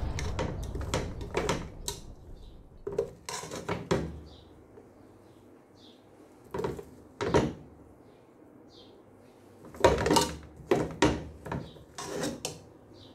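A metal slotted spoon scraping and clinking against an aluminium pot and a glass baking dish as cooked rice is scooped across, in irregular knocks and scrapes, busiest about ten seconds in. A rush of noise fades out over the first couple of seconds.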